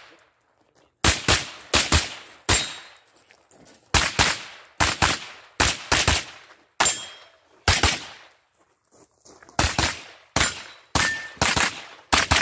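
Pistol-caliber carbine fired rapidly during a practical-shooting stage run: about two dozen sharp shots, mostly in quick pairs, with short pauses as the shooter moves between positions.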